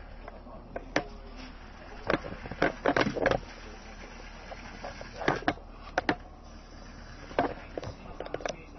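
Irregular sharp plastic clicks and knocks from a cheap toy RC car, some in quick clusters, over a low steady hum.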